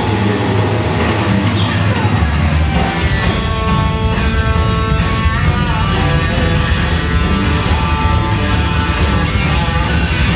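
Heavy metal band playing live without vocals: distorted electric guitar and bass guitar over drums. About three seconds in, the drums and cymbals come in with a fast, steady beat.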